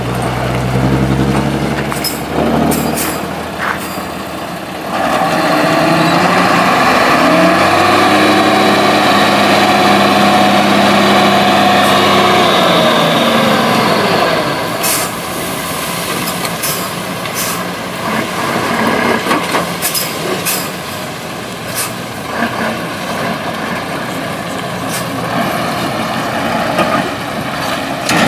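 Ten-wheel dump truck's diesel engine revving up for about eight seconds, its pitch rising, holding, then falling, as the hydraulic hoist tips the loaded bed. After that the engine drops back to a lower run while soil slides out, with scattered knocks.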